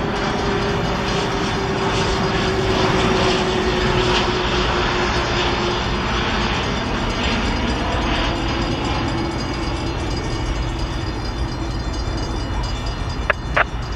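A train running past on the rails, a steady rumble of wheels with a faint tone that slowly falls in pitch, and two sharp clicks near the end.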